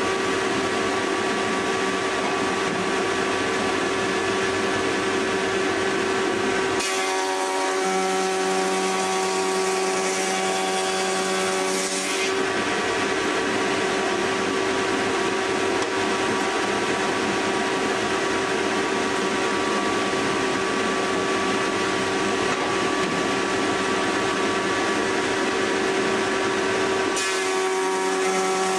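Logosol H410 planer-thicknesser running steadily together with its chip extractor while squared timber is thicknessed. About seven seconds in the sound turns rougher and fuller for several seconds, the sign of a board passing through the cutterhead, and it does so again near the end.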